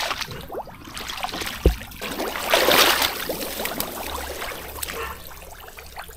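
Water trickling and splashing in shallow water, with a dull thud a little under two seconds in and a louder splash about two and a half seconds in.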